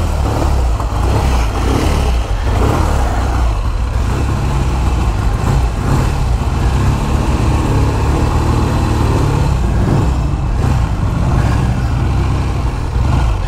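1956 Triumph T110's 650 cc parallel-twin engine running steadily while the motorcycle is ridden on the road, with a constant rush of wind noise.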